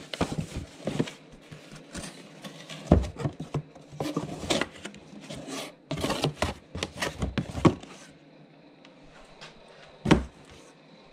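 A cardboard camcorder box handled in the hands: a busy run of rustles, scrapes and knocks for the first eight seconds or so, then one sharp knock near the end as the box is set down.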